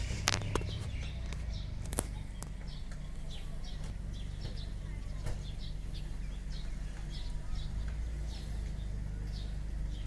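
Small birds chirping over and over, short high chirps about twice a second, over a steady low rumble. A few sharp clicks in the first two seconds.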